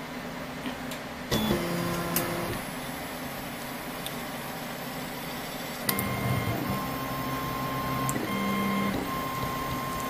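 Stepper motors of a homemade CNC table driving its axes, their current dialed in on Pololu drivers: a pitched motor whine comes in suddenly about a second in, changing pitch from move to move, goes quiet, then returns about six seconds in as a series of short moves, higher pitched.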